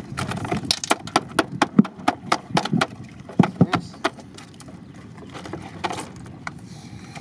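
PVC plastic shrimp-trap cages clattering as they are handled and shaken out over a pile of traps: a quick run of sharp clacks and knocks, about four or five a second, which thins out to a few scattered clicks after about four seconds.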